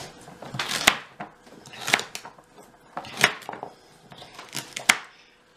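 Chef's knife chopping carrots on a plastic cutting board: a series of sharp knocks as the blade hits the board, roughly one a second and unevenly spaced.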